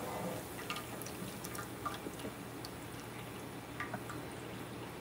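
Hot frying oil sizzling faintly, with scattered small pops and drips, as a wire mesh strainer of freshly fried flattened rice (poha) drains over the pan.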